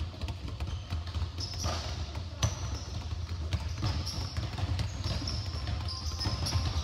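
Several basketballs being dribbled on a hardwood gym floor at once, an irregular patter of bounces, with short high squeaks from sneakers and a steady low hum underneath.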